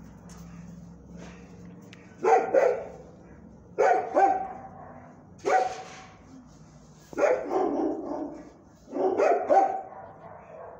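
A dog barking in short runs of one to three barks, starting about two seconds in and recurring every second or two.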